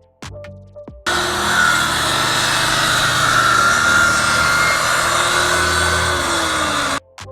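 A power tool running loud and steady for about six seconds, starting and cutting off abruptly, its pitch sagging slightly near the end.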